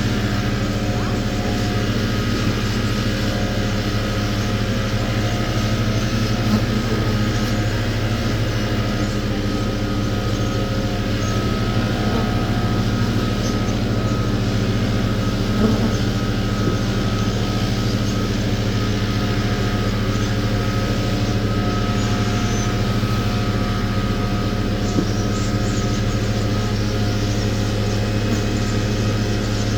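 An engine running steadily at idle: a constant low hum that does not change in pitch or level.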